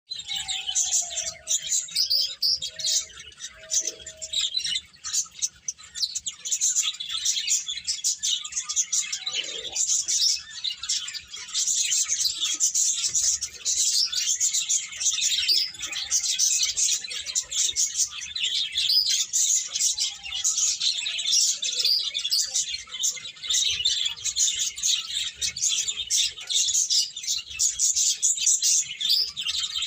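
A flock of small birds chirping without pause, many short, high chirps overlapping into a dense chatter. Now and then a lower, downward-sliding call sounds beneath it.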